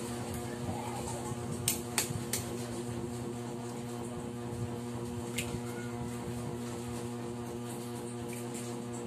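A metal spoon tapping eggshells to crack eggs over a stainless steel pot: three sharp taps close together about two seconds in, and another a few seconds later. A steady low hum runs underneath.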